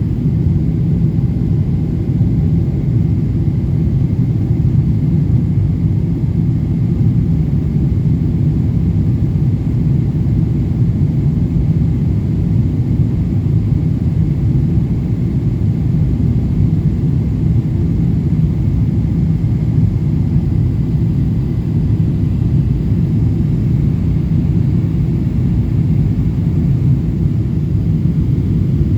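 Steady low rumble of a Boeing 777-200LR in flight, its GE90 engines and the airflow heard as one unbroken drone inside the passenger cabin, with a faint steady high whine above it.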